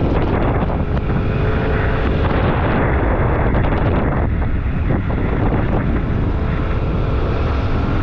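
Wind buffeting the microphone of a moving Yamaha Aerox 155 scooter, with the engine's hum faint underneath.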